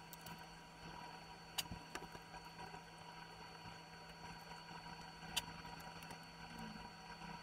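Quiet room tone with a steady low hum, and two faint clicks as chunks of pork, mushroom, onion and pineapple are pushed onto a bamboo skewer.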